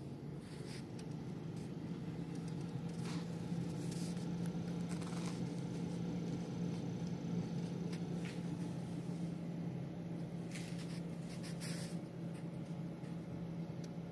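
Hobome air fryer running with a steady low fan hum that grows slightly louder over the first few seconds. A few faint clicks and taps sound over it, several of them close together near the end.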